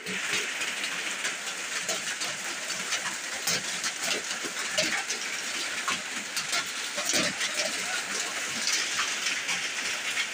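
Rain pouring down onto a waterlogged yard: a steady hiss dotted with many sharp little ticks of drops striking.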